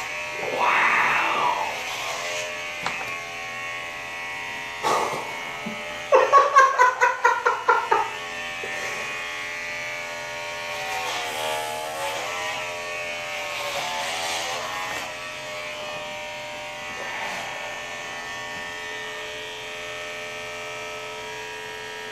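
Corded electric hair clippers buzzing steadily while they shear long hair off a man's head. A few louder sounds break in, the loudest a quick run of sharp pulses about six to eight seconds in.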